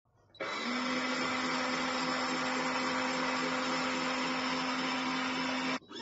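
Foldable washing machine's motor and pulsator spinning in an empty tub with no water: a steady, loud whirring hum with a low tone that starts about half a second in and cuts off abruptly just before the end, where a quieter machine hum with a different set of tones takes over.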